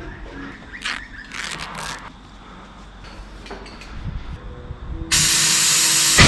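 Compressed air hissing at a tyre-changing machine: a few short bursts, then a sudden loud, steady blast about five seconds in that lasts over a second and ends with a sharp crack.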